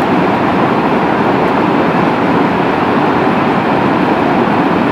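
Steady rushing noise of a cloudburst flash flood: a muddy torrent carrying rocks and debris down a mountain river valley.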